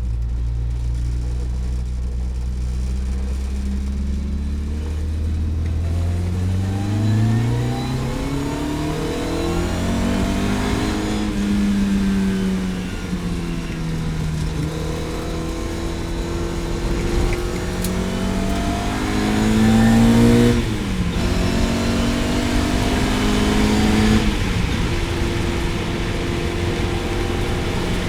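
Lotus Elan GTS race car engine under load on track, running low and steady at first, then revving up repeatedly with its pitch rising and dropping back as it shifts and lifts, with one sharp drop about two-thirds of the way through.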